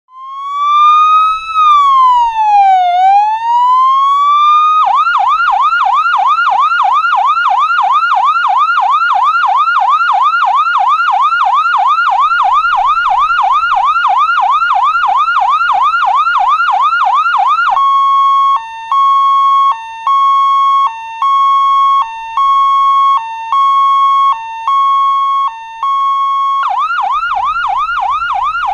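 Ambulance siren cycling through its patterns. It starts with a slow wail that rises, falls and rises again. Then comes a rapid yelp of quick rising sweeps, and after about eighteen seconds a long high note broken by short lower notes. The rapid yelp returns near the end.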